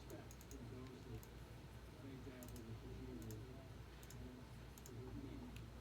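Scattered light clicks of a computer keyboard and mouse, some in quick pairs and small clusters, as names are sorted on a computer.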